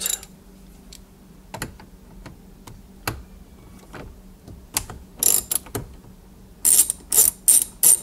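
Socket ratchet turning a 10 mm bolt: a few light clicks and knocks, then short runs of quick ratchet clicking about five seconds in and several more strokes near the end.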